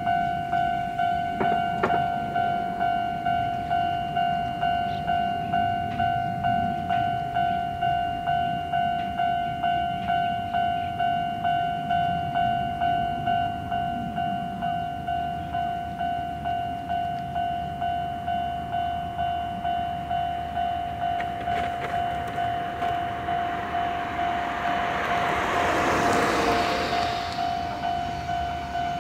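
Japanese level-crossing warning bell ringing steadily at about three strokes every two seconds, while an electric train approaches and passes, its rushing noise swelling to the loudest point near the end.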